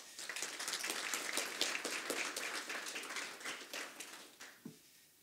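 Audience applauding, the clapping dying away after about four seconds.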